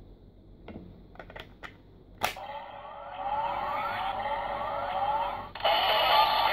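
Light plastic clicks as a Progrise Key is slid into a homemade toy Kamen Rider Zero-One driver, with one sharp click about two seconds in as it seats. Right after, the toy's small speaker plays an electronic standby loop of repeating rising tones. Near the end it switches to louder music.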